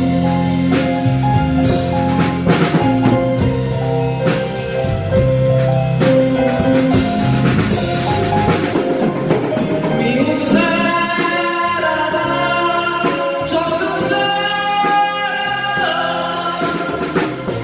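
Live band music without words: a drum kit keeps a steady beat under sustained keyboard chords. About ten seconds in, a bright melodic lead line comes in over the accompaniment.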